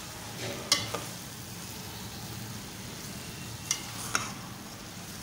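Chicken mince and green peas sizzling in a metal pot as a metal spoon stirs them, the spoon knocking against the pot a few times.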